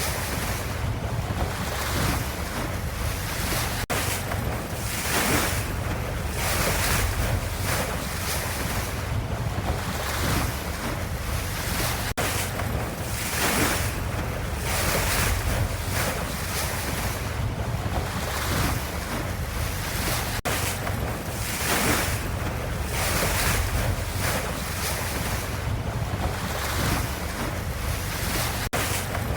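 Steady ocean water ambience: a continuous low rumble with a wash of hiss that swells every second or two, like waves surging. There are faint, very brief dips about every eight seconds.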